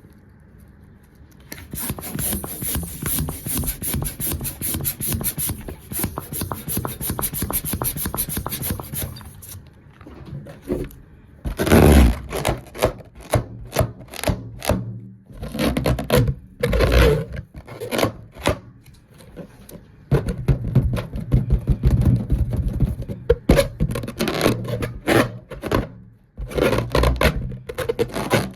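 Rapid rubbing and scraping strokes with a bright hiss for the first several seconds, followed by irregular, louder rubs and scrapes.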